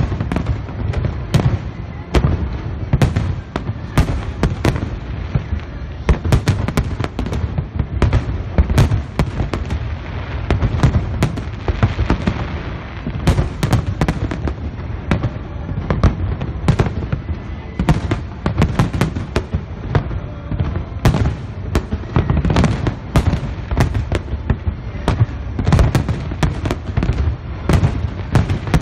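Aerial fireworks display in full barrage: a rapid, continuous succession of overlapping shell bursts, many bangs a second over a deep rumble of booms.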